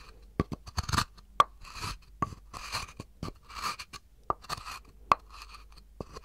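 A wooden spoon scraping and knocking against a turned wooden cup: irregular sharp wooden clicks mixed with short rasping scrapes, a few a second.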